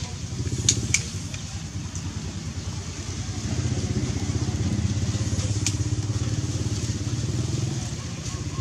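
An engine running steadily, growing louder about three and a half seconds in and easing off near the end, with two sharp clicks about a second in.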